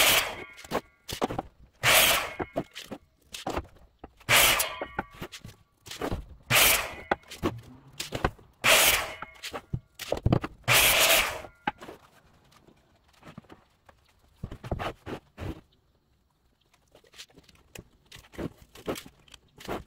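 Bosch miter saw cutting pine 2x4s: six short, loud bursts about two seconds apart. About halfway through the cutting stops, leaving quieter knocks and scrapes of the boards being handled.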